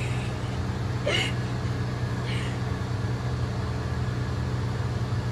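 Steady low mechanical hum throughout, with a brief high squeak about a second in and a fainter one a second later.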